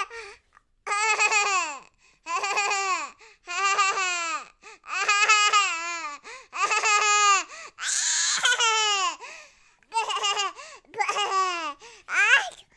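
A baby laughing: a string of about nine high-pitched, squealing laugh bursts, each roughly a second long and dropping in pitch at its end, with short breaths between them; one about eight seconds in is breathier.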